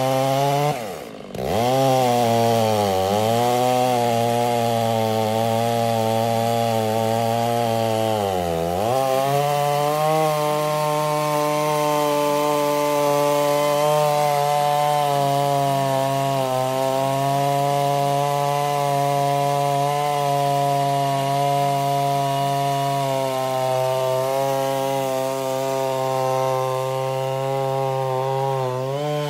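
Two-stroke chainsaw in an Alaskan chainsaw mill ripping lengthwise through a log on its first cut. The engine revs drop sharply about a second in and again around eight seconds as the chain loads up in the wood, then hold steady at full throttle through the cut.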